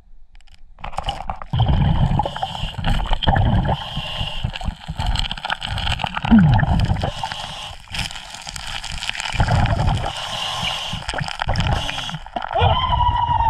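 Underwater scuba breathing: exhaled bubbles gurgle from the diver's regulator in a low rumbling burst about every three to four seconds, over a steady hiss of water. Faint clicks of small stones come as gravel is moved by hand.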